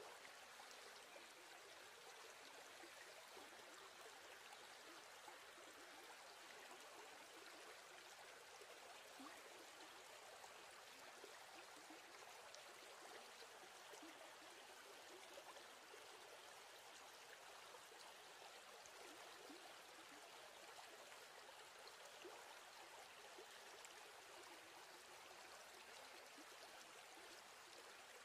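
Near silence: a faint, steady hiss that does not change.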